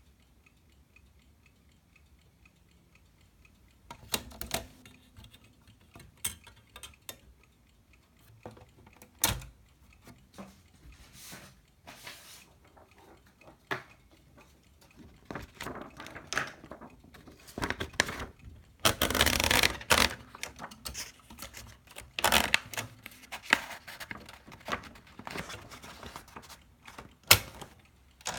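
Olivetti Valentine portable typewriter being handled: after a few seconds of near silence, irregular single clicks and clacks of its mechanism, with a longer rasp about 19 seconds in.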